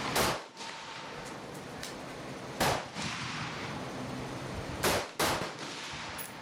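Four rifle shots: one at the start, one about two and a half seconds in, and two in quick succession near the end, each followed by a short echo.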